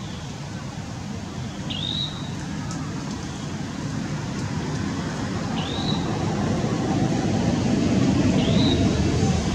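Steady low outdoor rumble, like distant traffic, growing louder toward the end, with a short high chirp repeating three times, every few seconds.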